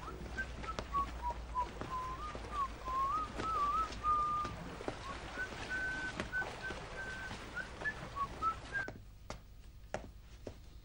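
A person whistling a tune, single clear notes that slide up and down and climb a little higher in the second half, breaking off about nine seconds in.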